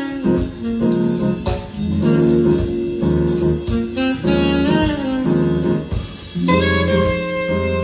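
Jazz music with a saxophone lead over a bass line, played back through Saba FL 835 F loudspeakers driven by a Philips 384 amplifier and heard in the room.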